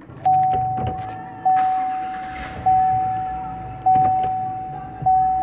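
The 2017 GMC Sierra's dashboard warning chime dings repeatedly as the truck is shifted into reverse. It is a single clear tone, struck about every 1.2 seconds and fading after each ding, five dings in all.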